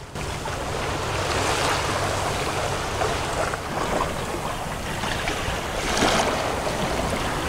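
Water rushing and splashing past the hull of a sailboat moving under sail, with wind buffeting the microphone. The rush swells a few times, most strongly about six seconds in.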